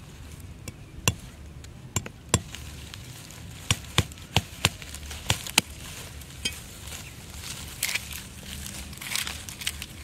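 A meat cleaver chopping into a thin wooden stick: about ten sharp, separate cracks spread through the first six or so seconds. A softer rustle follows near the end.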